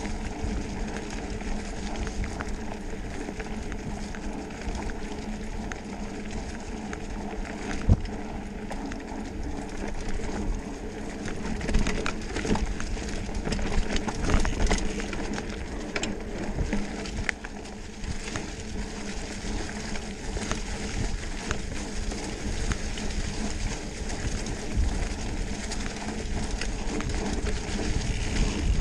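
Mountain bike rolling fast over a leaf-covered dirt trail: steady rolling noise with frequent rattles and knocks from the bike, and one sharp knock about eight seconds in.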